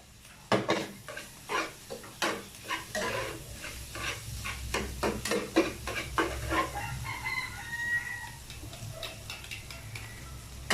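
A metal spatula scraping and knocking against a pan as fried rice is stirred, in a quick irregular run for about six seconds. About seven seconds in, a rooster crows once in the background.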